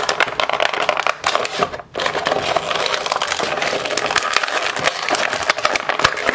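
Clear plastic blister tray crinkling and crackling as an action figure is pried out of it by hand, with a brief pause about two seconds in.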